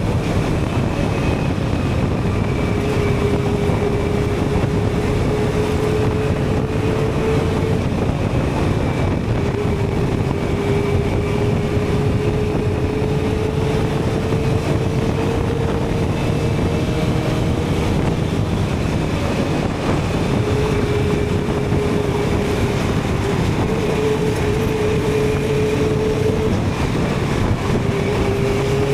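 Suzuki GSX-R750 inline-four with a Yoshimura TRS exhaust, ridden at a fairly steady cruise. Its engine tone drifts slowly and eases off briefly a few times, under a heavy rush of wind noise on the microphone.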